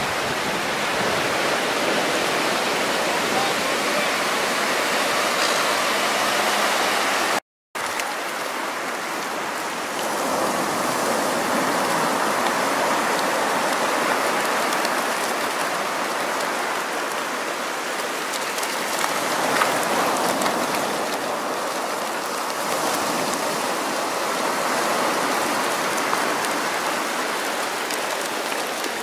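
Surf washing and churning in the shallows around a beach-hauled net full of mullet: a steady rushing, splashing water sound. It breaks off briefly about seven and a half seconds in, then carries on.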